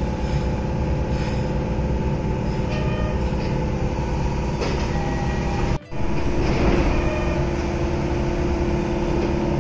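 Steady hum of a Kobe Municipal Subway 3000-series car's onboard equipment while the train stands at a station, heard from inside the car. It breaks off briefly about six seconds in, then comes back with a short rush of noise.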